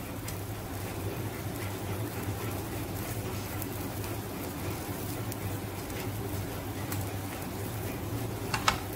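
Bun halves warming in a thin film of oil on a flat iron tawa, with a faint sizzle over a steady low hum. Near the end a spatula clicks twice against the pan.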